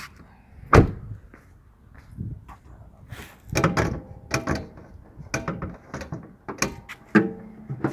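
A Chevrolet Gentra's car door shutting with one loud thud about a second in, followed by a scatter of lighter knocks and clunks.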